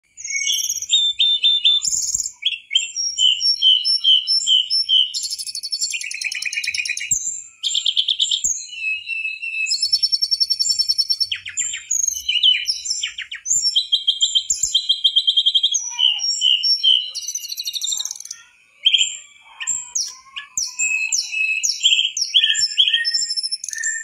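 Mangrove blue flycatcher singing a long, fast, varied song of high clear whistles, rapid trills and chattering note runs, with only a brief pause about three quarters of the way through.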